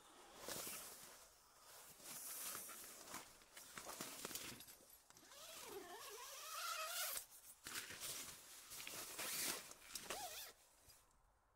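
Nylon sleeping bag and tent fabric rustling in repeated bursts as a person moves, and a zipper being drawn open, with the tent door zip about ten seconds in.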